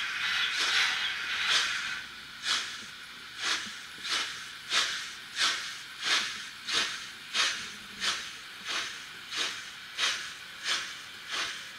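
Steam-locomotive sound from the sound decoder of a Märklin Trix 22960 model of the BR 96 Mallet, played through the model's small speaker. A steady steam hiss runs for about the first two seconds, then gives way to evenly spaced exhaust chuffs, about three every two seconds.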